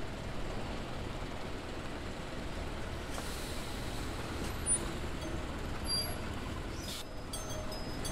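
Keifuku city bus running at low speed, engine and road noise steady, with a burst of air-brake hiss about three seconds in and a brief sharper hiss near the end.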